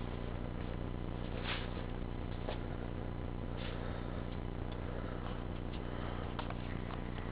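2002 Buell Blast's 500 cc single-cylinder engine idling steadily through a large aftermarket exhaust, with a few faint clicks and rustles over it.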